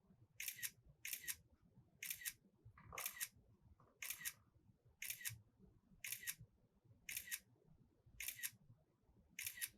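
Camera shutter clicking ten times, about once a second, each shot a quick double click. These are the ten frames of a stop-motion hold being captured.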